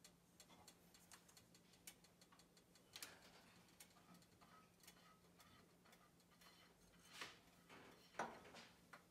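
Faint light dabs and swishes of a pastry brush spreading oil over a nonstick frying pan, the loudest stroke about eight seconds in, among scattered faint ticks and a low steady hum.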